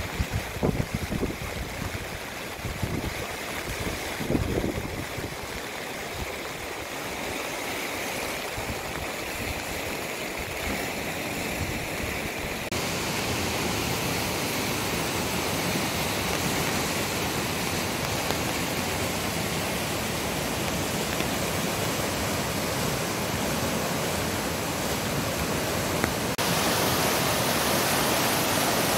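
Highland river in spate, fast brown water rushing and churning over rocks in a steady, continuous rush. Low, uneven buffeting sits under it in the first few seconds, and the rush grows a little louder about 13 seconds in and again near the end.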